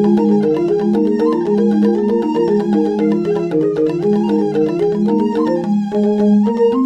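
Background music: fast repeating mallet-percussion notes, marimba-like, in a steady pattern.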